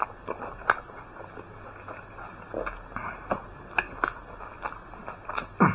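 A person eating close to the microphone: irregular chewing smacks and sharp mouth clicks, a few per second, with a louder one near the end.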